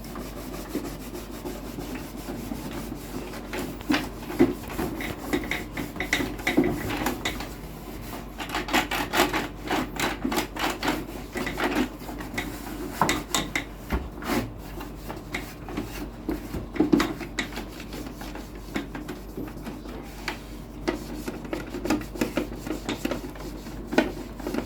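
Irregular rubbing and scrubbing strokes with frequent sharp clicks, as of the dusty Sony CFS-1058S radio cassette recorder being cleaned by hand.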